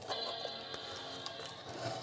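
Startup sound of a 3D-printed WALL-E alarm clock, played through its small built-in speaker by the MP3 player module as the ESP32 board reboots. It is a held chord of steady tones that starts suddenly and fades after about two seconds.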